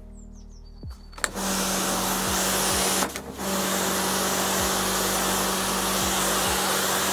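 AVA P80 Master electric pressure washer spraying stone patio slabs: the motor-driven pump hums steadily under the loud hiss of the water jet. It starts about a second in, stops briefly about three seconds in, then runs on steadily.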